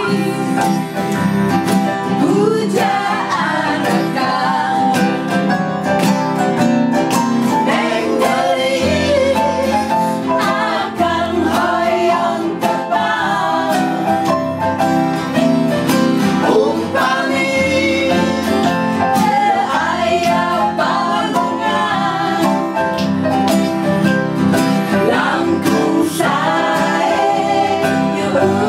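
Live music: acoustic guitars strummed with an electronic keyboard, and a woman singing the melody with others singing along.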